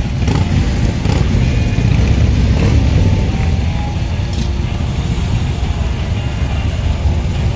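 A line of heavy touring motorcycles, Harley-Davidsons among them, passing one after another at low speed. Their engines run at low revs in a steady, deep, continuous sound, with a few brief louder blips as riders open the throttle.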